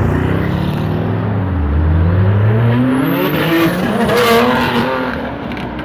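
Sports car engines accelerating away, their pitch climbing steadily over the first few seconds. A louder car surges past about four seconds in.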